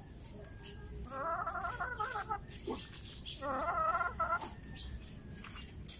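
Chicken calling twice, each a wavering call lasting about a second, the first about a second in and the second about three and a half seconds in.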